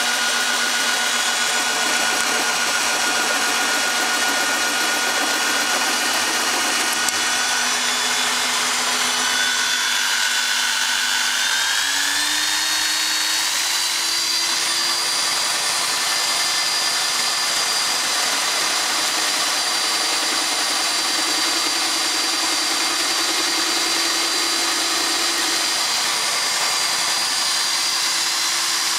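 Electric drill driving a homemade scroll saw, its motor running steadily as a whine over the saw's mechanical rattle. A little over ten seconds in the motor's pitch glides up a step and holds there as it speeds up.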